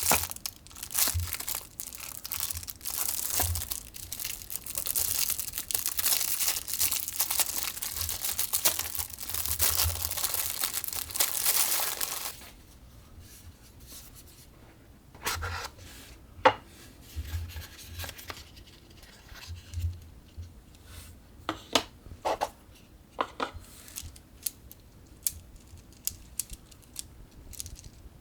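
Packaging being torn open and crinkled in a steady, dense crackle for about twelve seconds, then stopping abruptly. After that come scattered short clicks and taps of handling.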